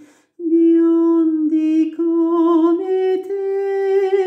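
A man singing a Finnish lullaby unaccompanied, holding long notes with vibrato. After a short breath about half a second in, his voice steps upward through several sustained notes.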